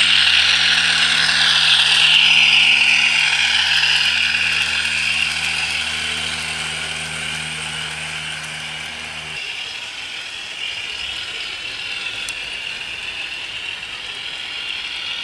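Hornby OO gauge Class 50 diesel model with a Howes DCC sound chip running past on track: the chip's English Electric diesel engine sound plays as a steady low hum through its small speaker, over the clicking and rattling of the model's wheels and gear mechanism. The engine hum cuts off suddenly about nine seconds in, leaving the fading wheel and mechanism rattle.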